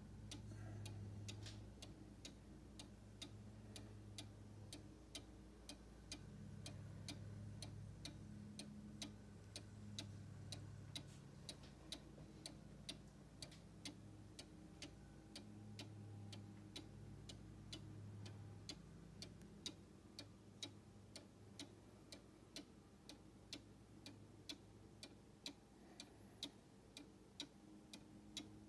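Mechanical cuckoo clock with an 8-day movement, ticking faintly and steadily at about two ticks a second.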